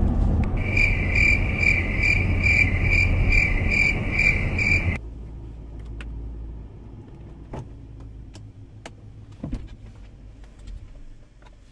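Car cabin while driving: steady road and engine rumble with a high electronic chime from the car beeping about twice a second. About five seconds in it cuts to a much quieter car interior with a low hum and a few faint clicks.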